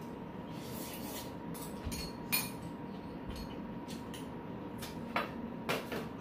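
Metal spoons and chopsticks clinking and scraping against stainless steel bowls while eating, with a sharp clink about two seconds in and two more near the end, over a steady low hum.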